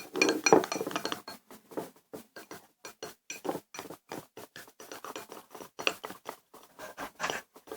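A spoon stirring sticky homemade slime in a bowl: a quick, irregular run of small wet clicks and scrapes, several a second.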